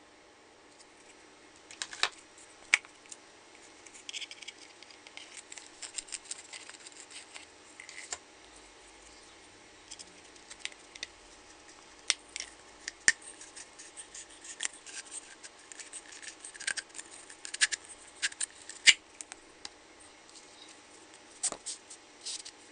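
Irregular clicks, taps and light scraping of plastic, cardboard and wood being handled on a tabletop: a plastic bottle with a cardboard disc and a wooden dowel being picked up, turned and fitted together. The sharpest clicks come about 2 seconds in and in a cluster near the end.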